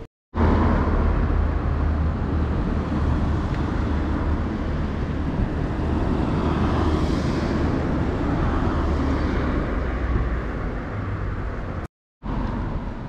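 Steady rumble and running noise of a moving vehicle, with a swell of higher hiss about seven seconds in. The sound cuts out for a moment about twelve seconds in, then resumes.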